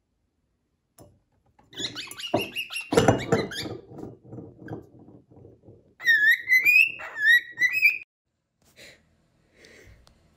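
A cockatiel makes a few seconds of rapid chattering and clicking, then whistles two short warbling phrases, each rising in pitch.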